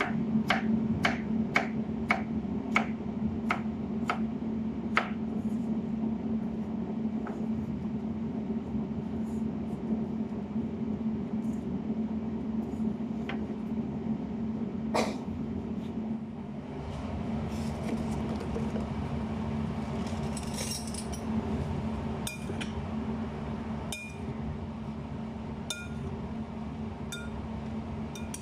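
Kitchen knife chopping zucchini on a plastic cutting board, sharp knocks about two a second for the first five seconds, then a few scattered knocks. Later several clinks with a short ring against a glass mixing bowl, over a steady low hum.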